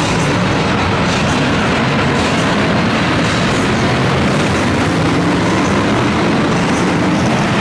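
Several BriSCA F1 stock cars racing round an indoor arena track, their engines running together as a loud, steady, dense din.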